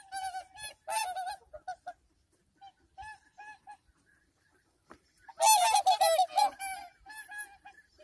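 A flock of swans calling with short honking notes: a quick run of calls at the start, a few single honks, then a loud, dense burst of overlapping honks from about five and a half seconds in.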